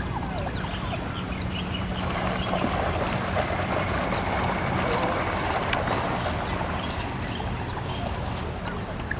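Water splashing and churning as a group of smooth-coated otters herd fish, loudest through the middle, with many short high chirps from the otters.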